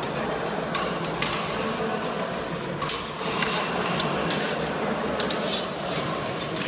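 Steel training sabres clashing in a historical fencing bout: a run of sharp metallic clinks and clacks at irregular intervals, several close together around the middle and again near the end.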